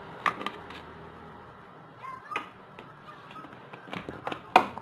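Someone drinking water from a plastic bottle: small sips and swallows, with the bottle's plastic clicking now and then. A sharp click comes near the end.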